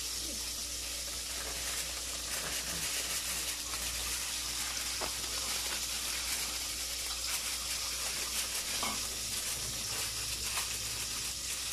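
A steady hiss with faint scattered ticks and rustles, as plastic packaging and utensils are handled.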